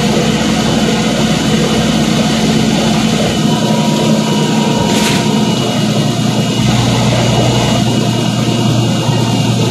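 City bus engine running, heard from inside the rear of the bus as a steady hum that drops lower about two-thirds of the way through, with one brief click about five seconds in.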